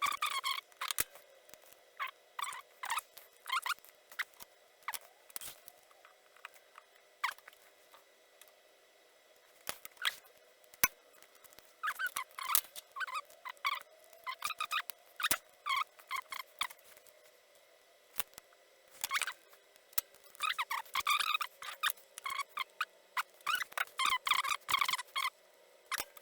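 Small clicks, taps and scratchy rustles of electronic components and hand tools being handled on a workbench while relays, diodes and resistors are fitted and soldered. The sounds come in irregular clusters, busiest around the middle and near the end.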